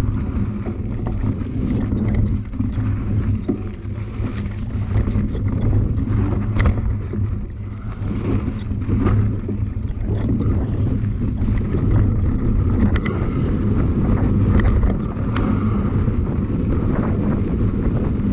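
Wind rushing over the camera microphone on a fast mountain-bike descent, with the bike rattling and knocking repeatedly over rough, stony ground.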